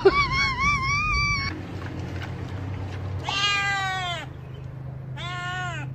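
Cat meowing three times: a long high call that wavers up and down, then two shorter meows that fall in pitch.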